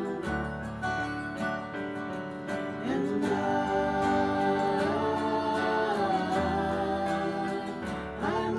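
Worship song played on acoustic guitar with strumming, while a singer holds long, wavering notes without clear words from about three seconds in.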